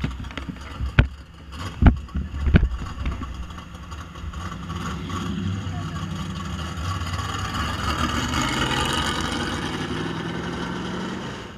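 A few sharp knocks in the first three seconds, then a steady vehicle engine sound that swells, peaks about eight to nine seconds in, and drops off near the end.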